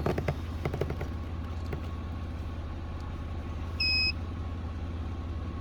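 Steady low hum with a short, high electronic beep about four seconds in, and a few light clicks in the first second.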